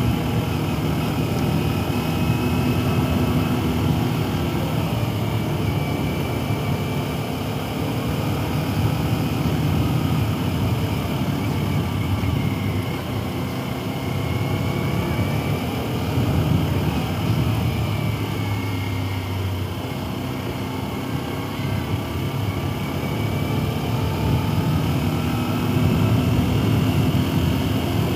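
Motorcycle engine running under way, its note rising and falling with the throttle, over steady wind noise on a helmet-mounted microphone.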